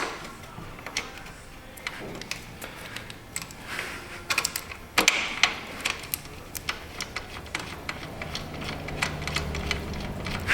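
Hand tools clicking and clinking on metal in an engine bay, a run of irregular sharp clicks as a 19 mm wrench is worked on the drive motor belt hardware. A faint low hum comes in near the end.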